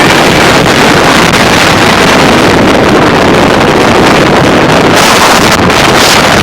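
Strong wind, gusting near 60 mph, buffeting the microphone: a loud, unbroken rumbling roar.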